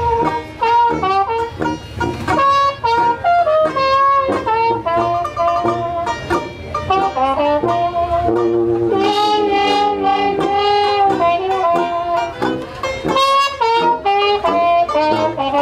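Traditional jazz band playing live: a trumpet carries the melody over a saxophone and a sousaphone bass line.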